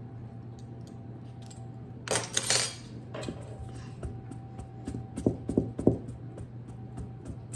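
Wire pastry blender cutting cold butter into the flour, oats and brown sugar of a crumb topping in a stainless steel mixing bowl: a loud scraping clatter about two seconds in, then a run of quick metal taps and clinks against the bowl, several a second. A steady low hum sits underneath.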